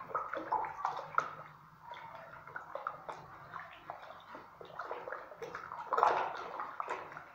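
Thick wet acrylic screeding putty being mixed by hand in a plastic bucket, in irregular wet strokes, loudest about six seconds in.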